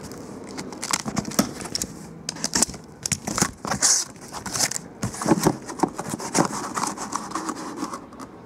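Packaging being opened by hand: wrapping crinkling and tearing in short irregular bursts, with scattered clicks and snips.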